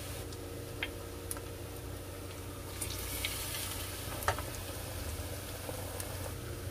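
Battered pale chub deep-frying in a countertop deep fryer, its oil at about 180 °C: a steady sizzle that grows louder about three seconds in as more battered fish go into the oil. A few light clicks of wooden chopsticks come through it.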